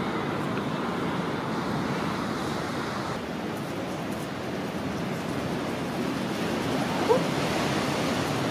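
Storm surf surging against a seawall: a steady rush of breaking waves and spray, with some wind. A short high call cuts in once about seven seconds in.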